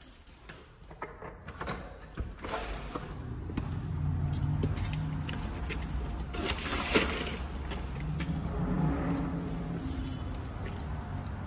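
Clicks and a metallic jangle of keys as a door is unlocked and opened, then a steady low hum of urban background outdoors, with one sharp clack about seven seconds in.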